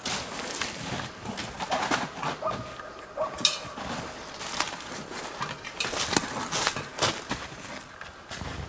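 Footsteps crunching in snow at an uneven pace, with a brief steady tone of about a second and a half starting around two seconds in.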